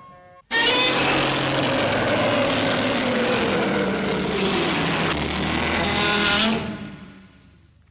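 Homemade Godzilla roar sound effect (a mutated Spinosaurus): a harsh, rasping roar that starts abruptly about half a second in, holds for about six seconds with its pitch sagging in the middle, then fades out.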